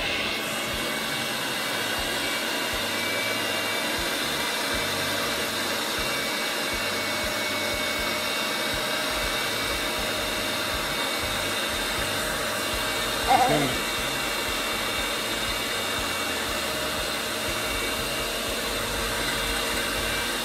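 Electric stand mixer running steadily, its beaters whirring through chocolate cake batter in a glass bowl. A brief louder sound breaks in once about thirteen seconds in.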